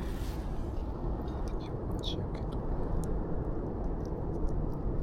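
Steady low outdoor rumble, with a few light clicks about two seconds in.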